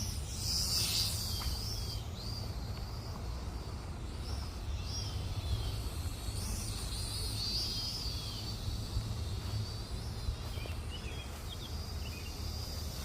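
Small quadcopter's motors whining high, the pitch rising and falling as the throttle changes, over a low rumble of wind on the microphone.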